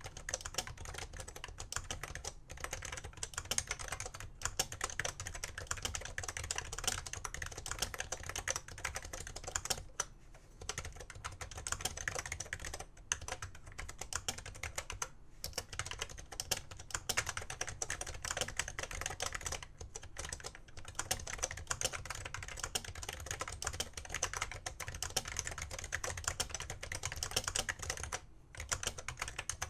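Continuous fast typing on a 1991 BTC 5139 keyboard with BTC conductive rubber dome switches: a dense run of soft key clicks and bottoming-out taps, broken by short pauses between bursts.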